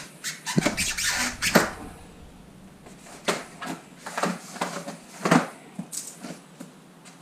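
Handling noise from unpacking and assembling an e-bike: a dense run of knocks and rustling in the first two seconds, then single knocks and clicks about once a second.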